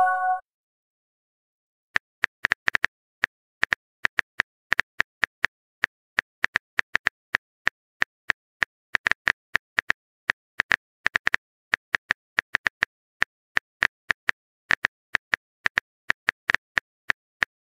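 Phone keyboard typing sound effect: short, sharp clicks in an irregular run of a few per second, starting about two seconds in, as a message is typed out.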